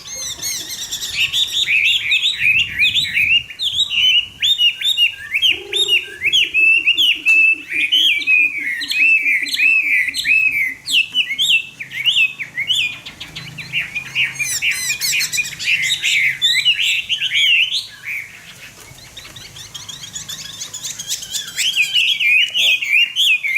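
Caged Chinese hwamei singing a loud, fast, varied song of rapid whistled phrases. The song pauses for a few seconds near the end, then resumes.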